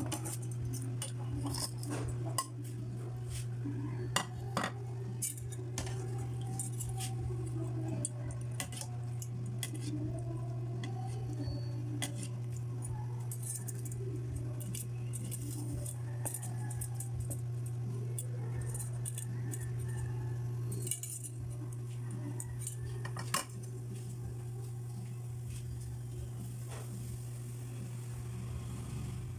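A spatula repeatedly clinks and scrapes against a wok as bihon rice noodle blocks are pressed into simmering broth, over a steady low hum.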